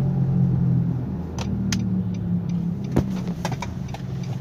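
Nissan Sunny's worn wheel bearing humming steadily while the car rolls in neutral, the hum easing slightly after about a second. A few sharp clicks, the loudest about three seconds in.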